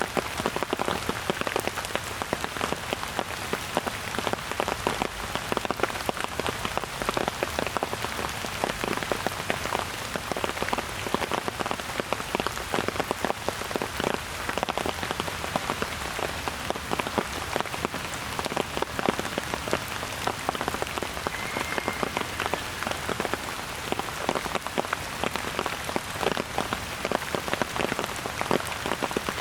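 Steady rain falling, with many close, distinct drop impacts over an even hiss.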